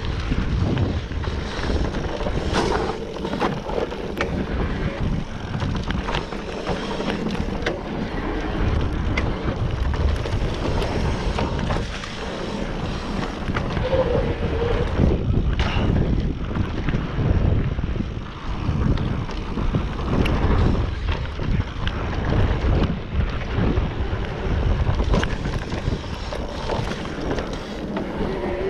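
Wind rushing over the microphone of a mountain bike rider's camera, with the rattle and knocks of the bike riding a rough dirt trail. A brief wavering squeal comes about halfway through.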